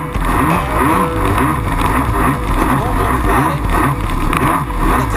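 Jet ski engine running at speed, its pitch rising and falling as the throttle changes.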